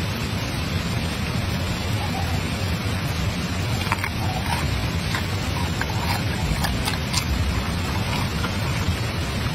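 Steady rushing noise, heaviest in the low range, with scattered faint clicks and ticks.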